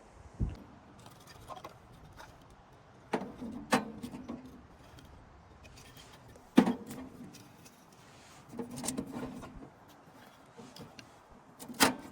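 Metal stove parts being handled and fitted together during setup: scattered knocks and clanks with a short ring, the sharpest a little past halfway and again near the end.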